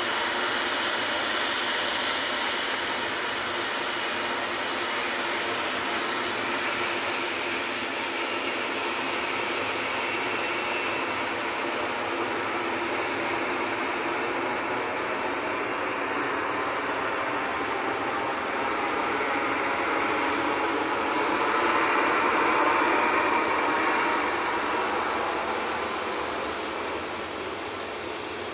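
Boeing 737 airliner's twin jet engines at taxi power: a steady jet rush with a high whine. It swells a little about three quarters of the way through, then fades near the end as the aircraft turns away.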